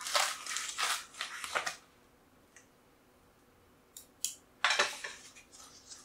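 A parcel's packaging being worked open by hand: bursts of rustling and crinkling, with a quiet pause of about two seconds in the middle.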